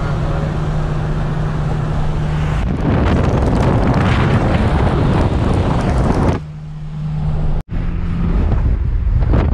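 Steady rushing road and wind noise of a moving car with a low engine hum. It grows louder about three seconds in, drops away for a moment near six and a half seconds, and cuts off for an instant before coming back loud.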